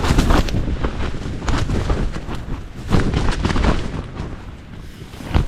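Gale-force wind gusting against the microphone and a tarpaulin shelter, the tarp flapping and cracking in loud, irregular gusts.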